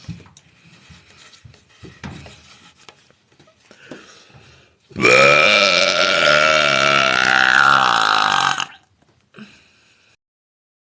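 A woman's long, loud belch, starting about five seconds in and lasting about three and a half seconds, its pitch wavering throughout.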